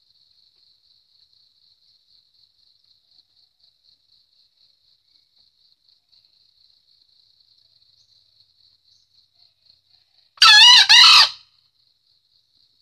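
A green junglefowl rooster crows once about ten seconds in: a short, loud two-part call with a wavering pitch. Faint, evenly repeated insect chirping sits underneath.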